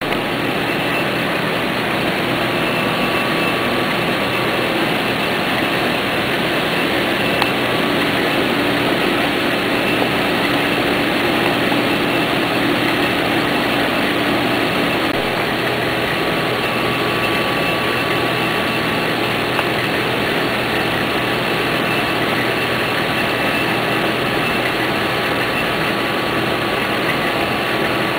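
Océ ColorStream 3500 continuous-feed inkjet printer running, its paper web feeding out: a steady machine whirr with a few faint steady tones over it.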